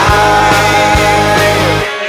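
Rock band playing an instrumental passage on electric guitars, bass and drums. Near the end the bass and drums drop out, leaving sustained guitar notes ringing.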